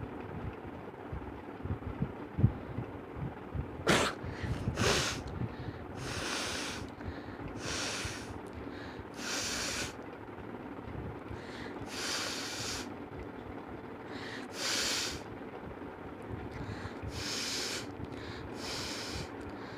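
A person sneezing sharply twice about four seconds in, then blowing hard through the nose again and again, one forceful blast every couple of seconds. The nose is being irritated with a blade of grass to set off the sneezing and nose blowing.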